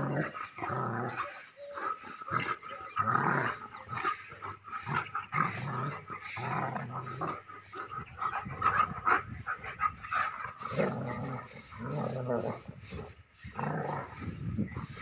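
Two German Shepherds growling at each other in short, repeated growls as they wrestle and roll.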